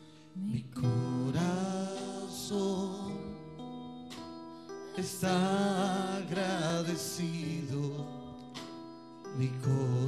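A slow worship song sung by a man and a woman into microphones over sustained electric keyboard chords; the voices come in about half a second in and carry on in long phrases.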